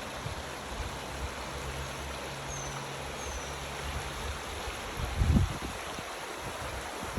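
Mountain stream running steadily over rocks. Two short, high, falling bird chirps come near the middle. A low hum sits under the first half, and a dull thump about five seconds in is the loudest moment.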